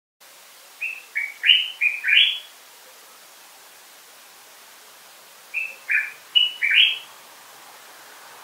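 Common bulbul (Pycnonotus barbatus) singing: two short, quick phrases of about five clear notes each, a few seconds apart.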